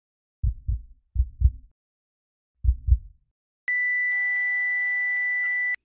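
Sound-effect heartbeat: three low double thumps (lub-dub), the third after a longer pause. Then a steady high-pitched electronic beep is held for about two seconds and cuts off suddenly.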